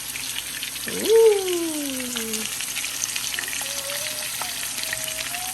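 Seasoned chicken pieces frying in hot sunflower oil in a pan: a steady sizzle with fine crackling.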